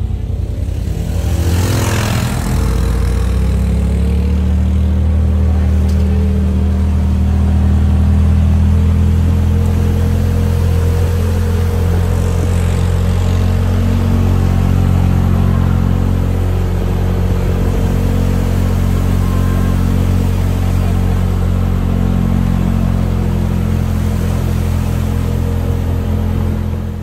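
Off-road vehicle engine running at a steady speed, with a brief rise in revs about two seconds in, then holding an even drone.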